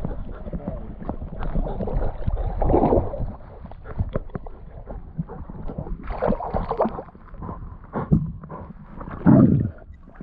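River water splashing and gurgling close to a GoPro, with irregular knocks and bumps on the camera and louder surges of splashing now and then.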